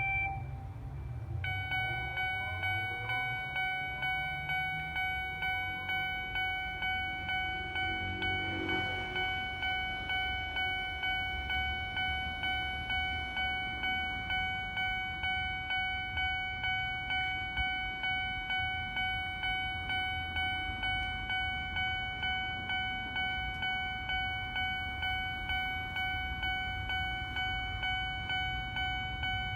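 Japanese railway level-crossing alarm bell ringing at an even, repeating beat, warning of an approaching train. A low rumble runs underneath.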